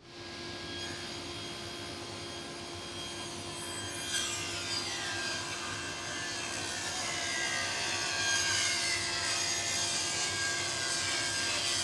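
Cabinet table saw switched on and running up to speed, then about four seconds in the blade starts cutting a long hardwood board at a 30-degree angle, the cutting sound growing louder and coarser as the board is fed through.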